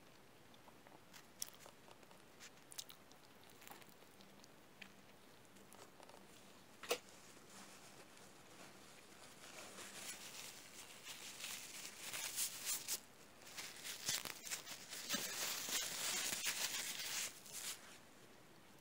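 Faint close-up eating sounds of a person biting and chewing a cheeseburger with lettuce: scattered soft clicks and one sharp click about seven seconds in, then a denser run of crunching and crackling for most of the second half.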